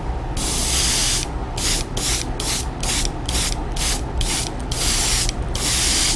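Airbrush spraying white opaque primer, hissing in pulses as the trigger is worked: a burst of about a second, then a quick run of short bursts about three a second, then a longer burst near the end.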